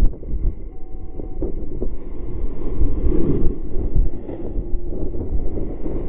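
Airflow buffeting the camera microphone on a paraglider in flight in strong wind: a loud, uneven low rumble that swells and eases.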